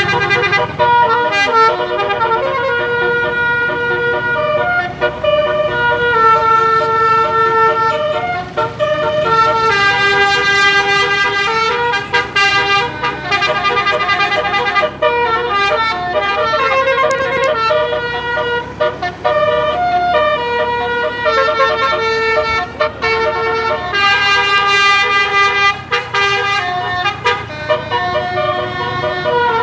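An 18-note 'telolet basuri' bus musical air horn playing a melody non-stop. Held horn notes change pitch every half second or so, sometimes several sounding together, with brief breaks between phrases.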